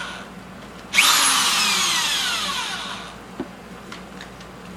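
Electric drill given a short burst on the trigger about a second in, its motor whine falling in pitch as it spins down. The tail of an earlier spin-down fades at the start, and a small tap follows near the end.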